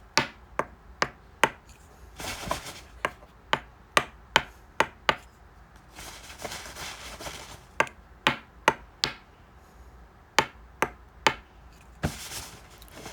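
Runs of sharp taps, about two or three a second, in groups of three to five, with short stretches of rustling between the groups.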